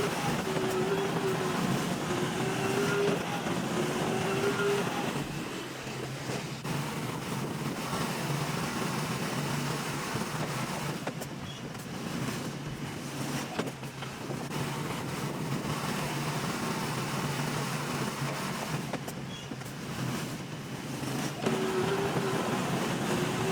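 Diesel engine of a heavy earthmoving machine running, with a wavering whine over the engine near the start; the machine gets quieter about five seconds in and louder again with the whine near the end.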